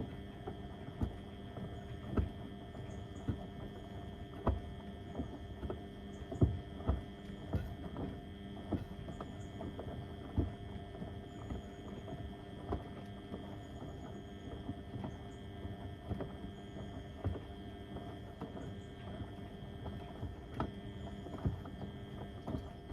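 Beko WM74135 washing machine turning its drum through the wash with a load of heavy door mats: a steady motor hum under irregular thuds and knocks, some loud, as the mats drop and slap inside the drum.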